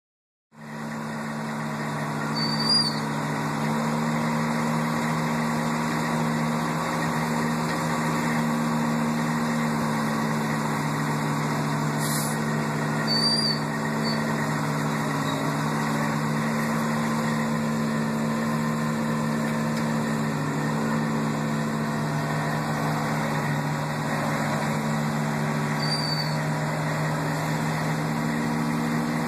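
Tow truck's diesel engine running steadily, with a deep, even drone. Three brief high chirps sound over it, spread through the stretch.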